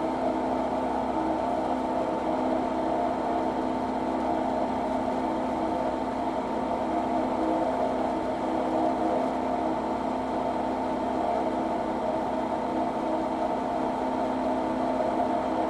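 Milling machine cutting an aluminum plate on a climb-milling pass: a steady whir of several constant tones from the spindle and cutter.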